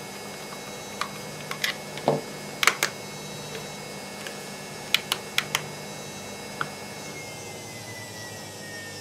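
Sharp plastic clicks and light knocks as a dual-mode LED torch is handled and switched between its top LED and its LED bank, about a dozen spread unevenly, with a duller knock about two seconds in.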